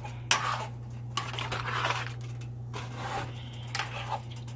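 Spoon stirring a thickening meatball gravy in a pan, scraping and sloshing in strokes roughly once a second, over a steady low hum.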